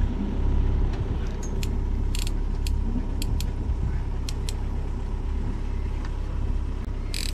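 Scattered metallic clicks and short rattles from a fishing reel under load as a big fish is fought on a bent rod, with a longer rattle about two seconds in and another near the end, over low wind noise on the microphone.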